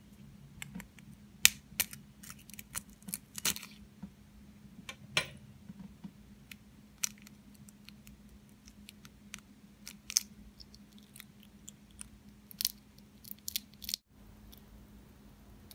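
A quail eggshell being cracked and picked apart between fingertips: irregular small crackles and clicks, the loudest about one and a half seconds in. A faint steady hum runs underneath.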